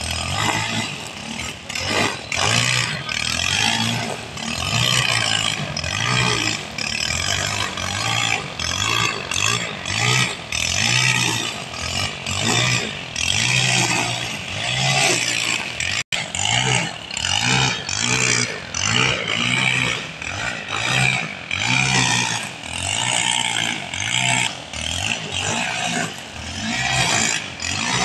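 Petrol brush cutter engine running under load as it trims grass, its level swelling and dropping every second or so as the cutting head swings through the grass.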